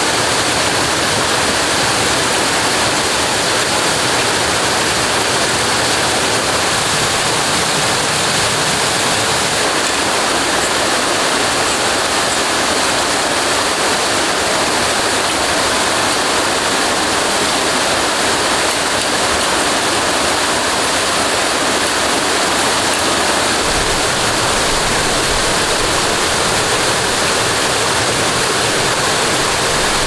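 Steady rush of a small waterfall splashing down a rock face, a constant, unchanging roar of falling water.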